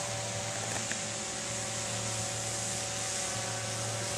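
Quadcopter drone hovering overhead, its propellers giving a steady whirring hum with a hiss.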